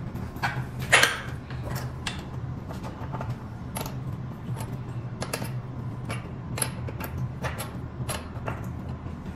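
Irregular metallic clicks and knocks from hand work on a scooter's coil-spring front shock absorber and its mounting hardware, the loudest knock about a second in, over a steady low hum.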